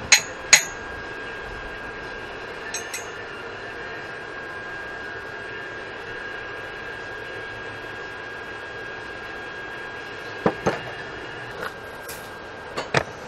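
Sharp metallic clanks and taps on the steel tubing of a go-kart frame: two loud ones in the first second, two light ones a few seconds in, then a few more, mostly in pairs, near the end. A steady background hiss with a faint high tone runs underneath.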